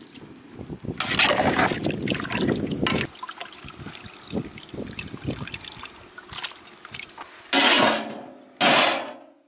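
A ladle stirring mutton pieces in broth in a large aluminium pot, the liquid sloshing and trickling as the salt is mixed in. Near the end come two short, loud sounds.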